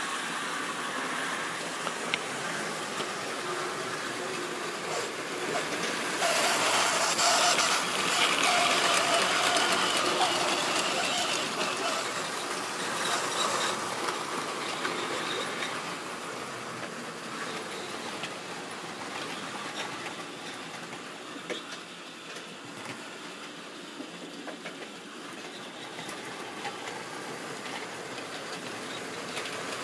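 Model railway train running along the track: a steady rattle of wheels and motor that grows louder about six seconds in as it passes close, then eases off.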